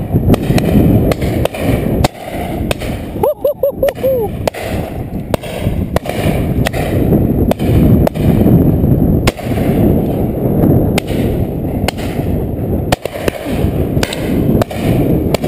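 Shotguns firing irregularly, many shots in a row, some close and some distant, over a steady low wind rumble on the microphone. A short run of about five quick pitched notes sounds about three seconds in.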